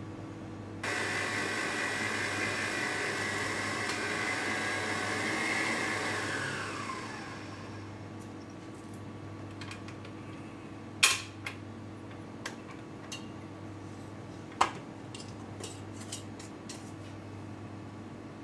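Stand mixer with a whisk attachment running steadily, then switched off and spinning down with a falling pitch. Afterwards there are two sharp knocks and a few light clicks against the steel bowl or counter.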